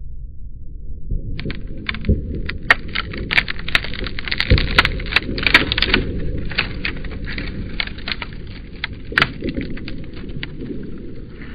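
Cracking sound effect: a low rumble with dense, irregular sharp cracks and snaps over it, starting about a second in and thinning toward the end.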